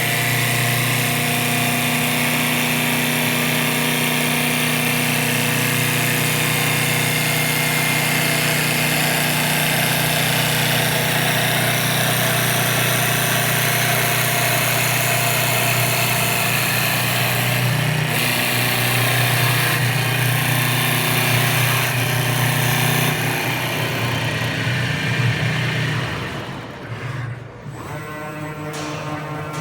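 Wood lathe running: a steady motor hum under a loud hiss. Toward the end the sound drops and thins out.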